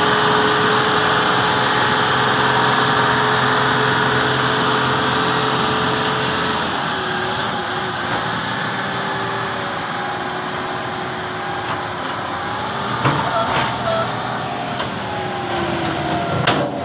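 Heavy diesel engines of a dump truck and an excavator running steadily, with a high whine over the engine note; the engine pitch drops slightly about seven seconds in. A few sharp knocks come near the end.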